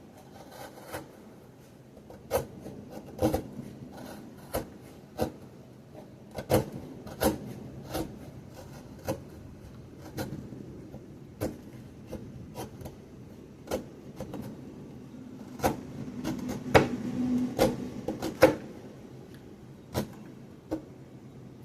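The small knife blade of a Gerber Dime multi-tool shaving curls off a stick of pine to make feather sticks: a run of short scraping cuts, roughly one a second, with a busier stretch of quicker strokes near the end.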